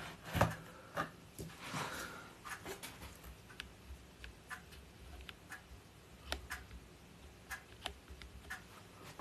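Faint, irregular light clicks and taps from a food steamer being handled as it is closed and set for a few minutes of steaming.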